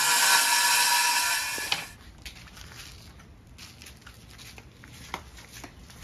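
Cordless circular saw cutting a clear plastic sheet: a loud, steady whine that cuts off about two seconds in. After that only a few faint clicks are heard.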